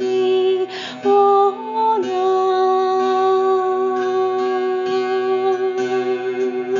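A woman's voice sings long wordless notes over a steady low drone. There is a breath just under a second in, the pitch steps up twice, and then it settles into one long held note.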